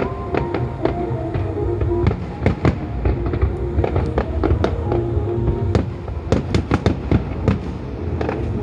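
Fireworks going off in quick, irregular bangs and crackles, thickest in a run a little past the middle. Music with long held notes plays underneath throughout.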